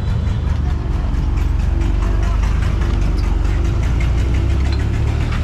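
Lonking crawler excavator's diesel engine running with a steady low rumble, with a quick patter of small clicks and rattles as the machine moves.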